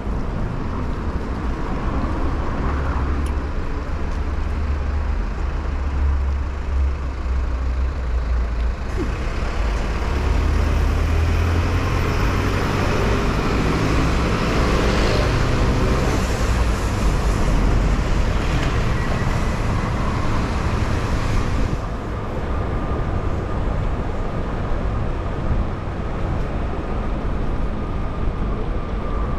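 Street traffic with a diesel city bus running close by. A heavy low rumble runs throughout, and the noise grows louder and hissier for about twelve seconds in the middle while right behind the bus.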